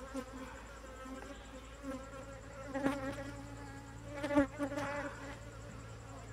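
A colony of honeybees buzzing around their opened nest while comb is pulled out by hand. The hum is steady, with a few louder swells about three, four and a half and five seconds in.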